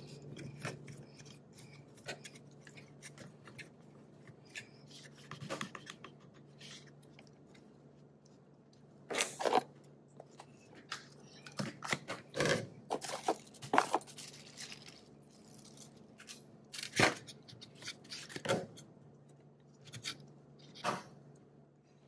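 Clicks and knocks of a CV axle shaft and its metal parts being handled and set down on a stainless-steel workbench, with louder knocks bunched in the second half, over a steady low hum.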